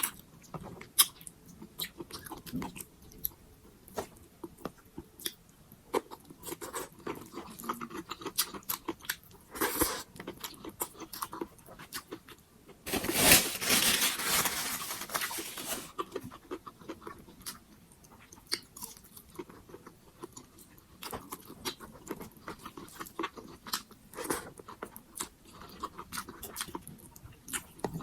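Close-up eating sounds of a person eating pork sinigang: chewing with many short wet mouth clicks and crunches. A longer, louder noisy sound of about three seconds comes about halfway through.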